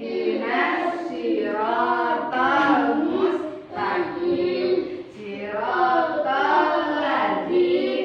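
A woman and children chanting a prayer aloud together in a sing-song unison, the recitation said before a lesson begins.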